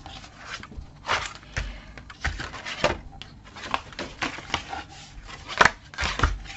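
Paper and card being handled: a run of short, irregular rustles and scrapes as the pieces are slid and folded into place.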